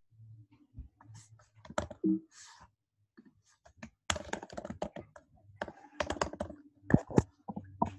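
Typing on a computer keyboard: quick runs of key clicks in irregular bursts, busiest from about halfway through.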